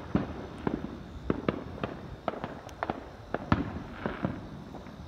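Fireworks and firecrackers going off in quick, irregular succession: a dozen or so sharp bangs and pops, the loudest about three and a half seconds in.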